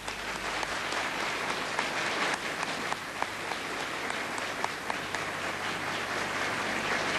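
Studio audience applauding: many hands clapping, starting suddenly and holding steady.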